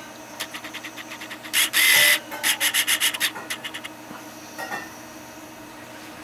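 Hands handling a small 3D-printed plastic housing, making a run of rubbing, scraping strokes. The loudest comes about a second and a half in, then a quick series of about eight strokes a second, stopping about three and a half seconds in.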